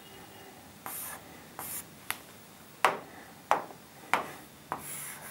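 Stylus pen on an interactive display screen: a few short scratchy drawing strokes and about five sharp taps in the second half as the pen picks options from the on-screen palette.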